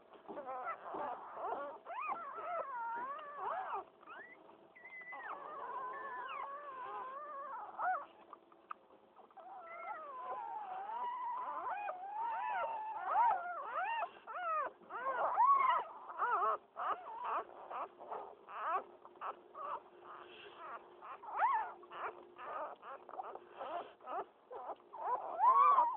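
Newborn pit bull puppies squealing and whimpering, thin high cries that slide up and down in pitch. The cries are longer and drawn out at first, then come as many short, quick squeaks in the second half.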